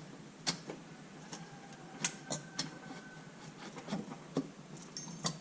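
Scattered light clicks and taps of metal engine parts being handled and fitted while assembling a Honda CB125E's cylinder, cam chain and tensioner, irregular and a few at a time.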